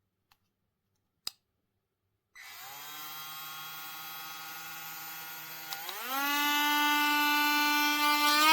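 DuroFort 8V cordless rotary tool: a sharp click about a second in, then its motor starts up about two seconds in with a steady whine, and about six seconds in the whine glides up to a higher, louder pitch as the speed is stepped up.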